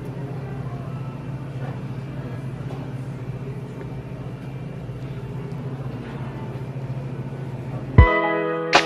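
Steady low hum of a shop's room noise. About eight seconds in, guitar music starts suddenly with loud plucked notes.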